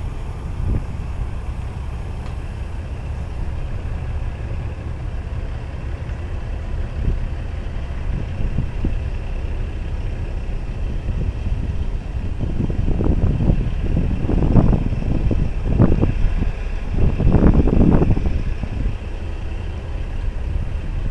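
Semi truck's diesel engine running with a steady deep rumble, with louder uneven gusts of noise over it for several seconds past the middle.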